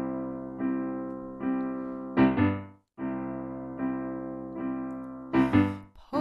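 Keyboard instrumental introduction: sustained chords struck again roughly every three-quarters of a second, with a pair of short, louder chords closing each phrase, once about two seconds in and again near the end.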